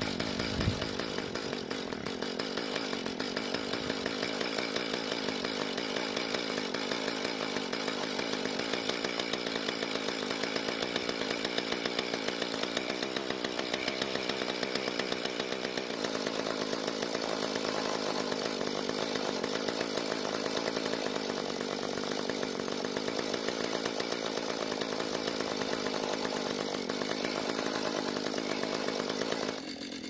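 Mantis mini tiller's small gas engine running steadily with its tines spinning, kept going only on heavy choke because it is running lean and starved of fuel. The sound drops off suddenly near the end as the engine dies.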